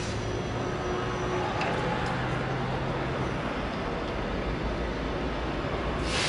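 Steady rushing noise with a faint low hum from the Intellian i4 marine satellite TV antenna's drive motors as the uncovered dish turns searching for the satellite. The hum stops about halfway through as the antenna locks onto the signal, leaving the steady noise. A short hiss comes at the very end.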